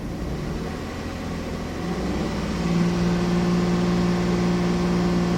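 Jeep Grand Cherokee's 3.7-litre V6 engine idling steadily after its misfire codes were cleared. About halfway through, a steady hum comes in on top and the sound gets slightly louder.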